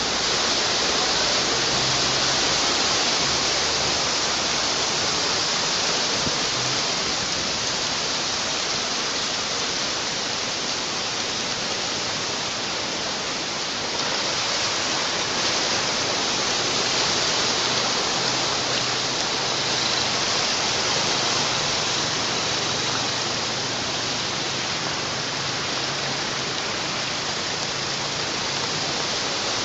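Heavy rain and running floodwater making a steady, loud hiss, with a faint low hum in the background.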